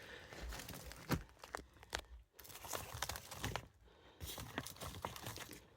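Faint rustling and crinkling with scattered clicks and taps, the handling and movement noise of someone shifting about in a tight space.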